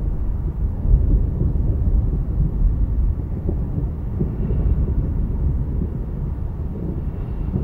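Continuous low rumble of distant thunder rolling on, rising and falling in strength.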